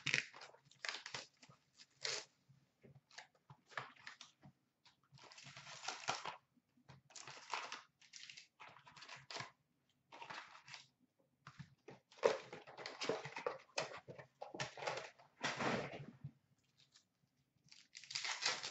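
Foil hockey card packs handled, crinkled and torn open by hand, in irregular crackling bursts with short pauses between them.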